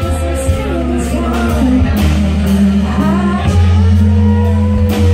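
Live band playing: a woman singing lead over electric bass, keyboard, electric guitar and drum kit, with cymbal hits.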